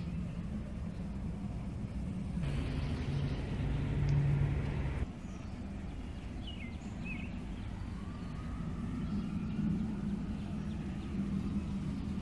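Outdoor city-park ambience: a steady low rumble of distant traffic, with a louder rushing stretch of about two and a half seconds that cuts off suddenly. A few short bird chirps come about halfway through.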